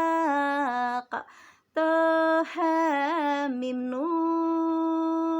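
A woman singing a sholawat unaccompanied, drawing each syllable out into long held notes with wavering ornamental turns between pitches. She breaks off for a breath about a second in, then resumes.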